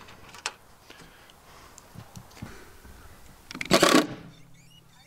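Faint clicks of a bolt and washer being handled, then, about three and a half seconds in, a DeWalt cordless impact driver runs for about half a second. It is driving a bolt through a solar panel's Z-clip into a wooden deck.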